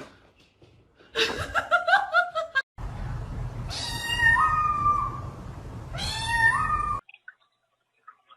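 A cat meowing: a short wavering call about a second in, then two long drawn-out meows that each jump up in pitch partway through, over a low steady hum.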